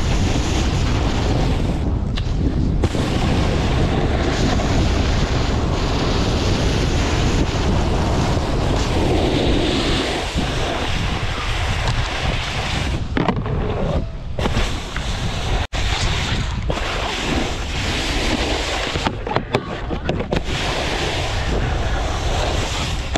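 Wind rushing over the microphone of a snowboarder's body-mounted camera while riding down the slope, mixed with the steady hiss and scrape of the snowboard's base and edges on the snow.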